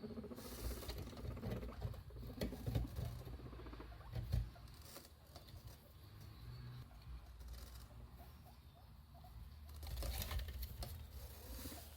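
Guinea pigs moving about inside a hidey, making irregular scratching, scraping and clicking sounds, louder in short bursts.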